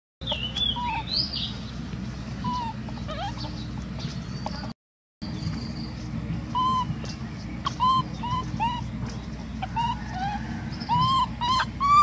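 Short chirping calls, sparse at first and coming in quick succession in the second half, with a few higher rising squeaks in the first second or so, over a steady low background hum.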